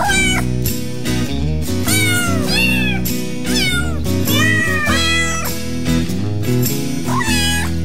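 Kittens meowing, about half a dozen short high calls that mostly fall in pitch, over background music with a steady low bass line.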